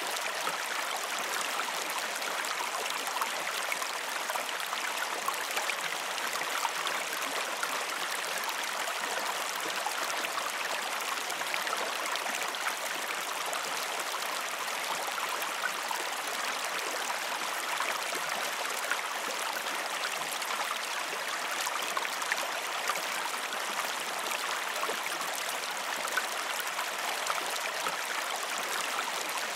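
Creek flowing: a gentle, steady rush of water with no pauses or changes in level.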